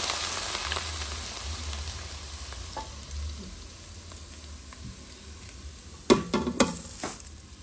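Hot oil from frying fish poured through a mesh strainer onto chopped onions in a pot, sizzling loudly at first and dying down over a few seconds. A few sharp knocks near the end.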